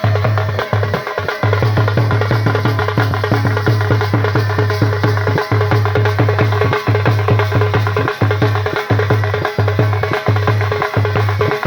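A band baja sound check: loud live music with fast, driving drumming and a low bass note that cuts in and out in a repeating pattern.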